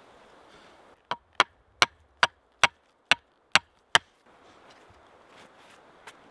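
Eight sharp knocks in quick succession, about two and a half a second, from a hatchet being struck down hard beside a planted seedling to close the soil around its roots.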